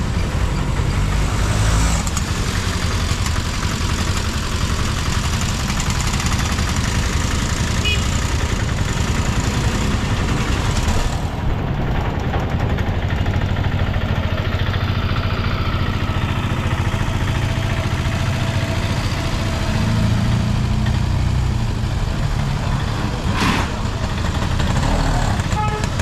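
Road traffic: vehicle engines running and passing close by, a steady low rumble. A single sharp click comes near the end.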